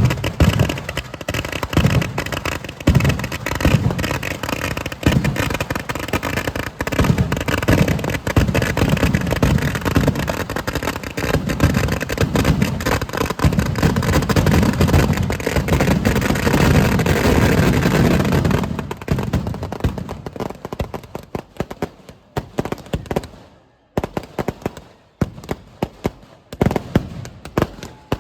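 Kerala temple fireworks (vedikkettu): a rapid, continuous barrage of firecracker bangs that thins out about two-thirds of the way through into scattered single bangs with short gaps between them.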